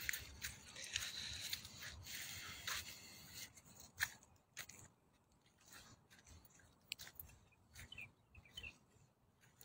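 Faint rustling and scattered clicks, busiest in the first three seconds, with a few faint bird chirps about eight seconds in.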